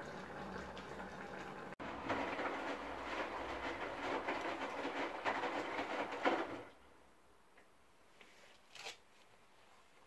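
Hotpoint front-loading washing machine drum tumbling a wash: water sloshing with rapid clicks and knocks for about five seconds, then stopping suddenly. Before that, a short stretch of steady hiss from pots simmering on an electric stove.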